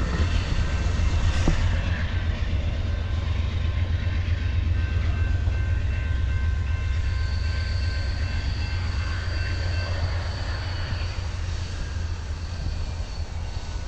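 Amtrak Coast Starlight passenger train rolling past on its departure, a steady low rumble with faint high-pitched wheel squeal, slowly fading.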